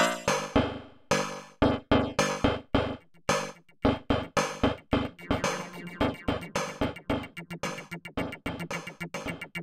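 Waldorf Blofeld synthesizer playing a wavetable patch as a sequence of short notes, each starting sharply and dying away quickly. About two notes a second at first, quickening and thickening into a denser pattern past the halfway point.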